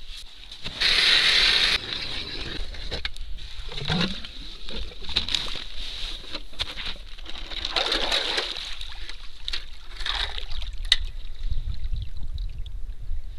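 A snow shovel scraping and scooping snow near the start, then slush and water sloshing and splashing as a flooded ice-fishing hole is worked with hand tools and an ice auger.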